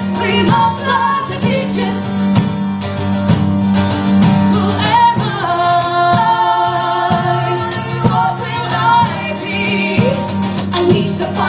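Live folk-rock song: women's voices singing over strummed acoustic guitars, with a steady strumming rhythm under the held sung notes.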